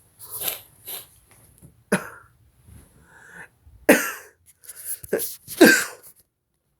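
A person coughing several times in short, sharp bursts, with throat clearing and sniffing, the loudest coughs in the second half: irritation from sniffed chhinkni sneezing powder before the sneeze comes.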